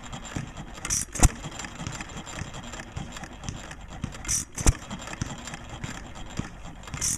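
1924 Fairbanks-Morse Z 2 hp single-cylinder hit-and-miss engine coasting on its flywheels and firing twice, about three and a half seconds apart. Each loud firing bang comes just after a short hiss, with light clicking from the valve gear in between.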